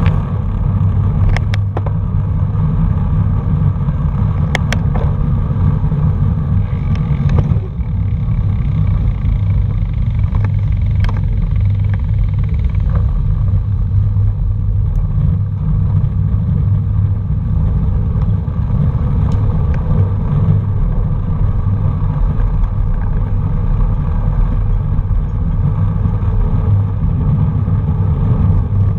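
Steady low wind rumble and road noise on a camera mounted on a moving bicycle, muffled and dull in the highs. A few sharp clicks come in the first dozen seconds.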